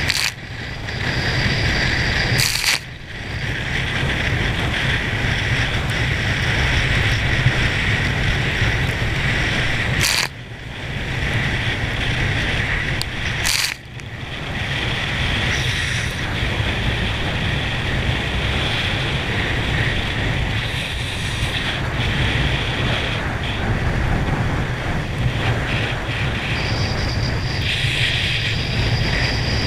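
Wind rushing over an action camera's microphone with the hiss and churn of spray from a speedboat's wake while being towed at speed. A few times a sharp splash hits and the rush drops out briefly before swelling back.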